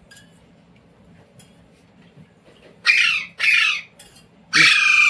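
Indian ringneck parrot squawking: two short, harsh, high-pitched calls that fall in pitch about three seconds in, then a louder one near the end, after a quiet start.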